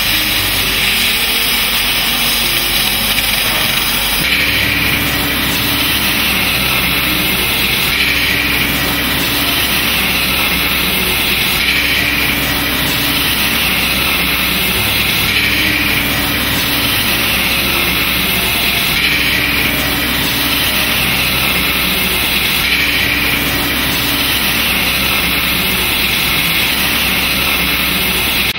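Oxy-fuel cutting torch jet running steadily as the CNC machine cuts steel plate: a loud, even hiss.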